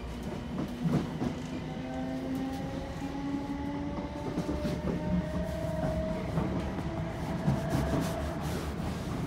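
Inside a Class 455 electric multiple unit on the move: the wheels rumble steadily on the track with a few clicks from rail joints. Over this, the traction motors whine, rising slowly in pitch as the train picks up speed.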